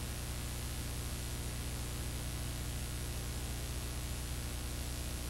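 Steady hiss with a low electrical hum underneath, unchanging throughout: the noise floor of a blank stretch of old archived videotape.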